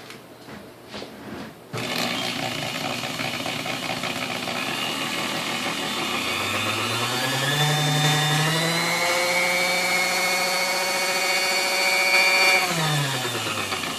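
Sunbeam Mixmaster Model 9 stand mixer motor switched on about two seconds in, running with a busy mechanical whir. It speeds up, rising in pitch, then holds steady, and near the end winds down and stops. It makes a little bit of noise but runs, a good sign for this unrestored mixer.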